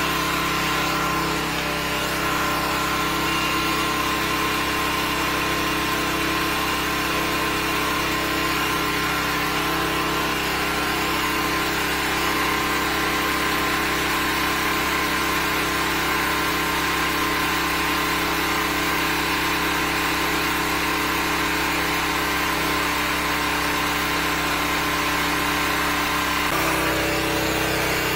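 Engine of a 13-horsepower high-pressure sewer jetter running steadily under load while its hose jets water into a clogged drain; the engine note shifts slightly near the end.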